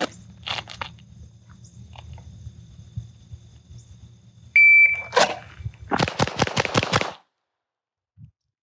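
A shot-timer start beep, one steady tone of about half a second. Then a VZ61 Skorpion short-barrelled rifle is drawn from its Kydex holster and fired in a fast string of shots for a Bill drill, the shots packed into about a second.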